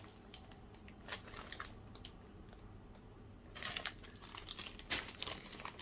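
Clear plastic packaging crinkling as it is handled: a few scattered light crackles at first, then a denser rustle a little past halfway.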